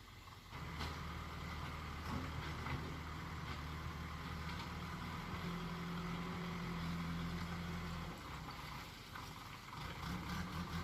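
Hyundai excavator's diesel engine running steadily under working load. It eases off about eight seconds in and picks up again near the end, with a few sharp knocks in the first few seconds.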